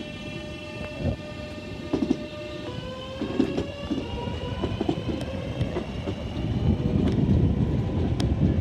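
Electric multiple-unit train pulling away from the platform: its traction motors give a whine that rises steadily in pitch from about three seconds in, and a rumble of wheels on the rails grows louder toward the end.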